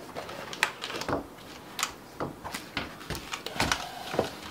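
Irregular clicks and knocks of hands handling a mechanical keyboard and its stackable magnetic feet, the plastic riser pieces clicking together and against the board.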